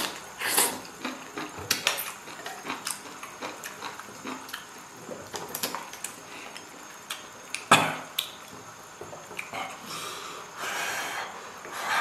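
A person eating hot pot, slurping and chewing, with wooden chopsticks clicking against a stainless steel bowl. One sharp metal clink stands out about two thirds of the way through.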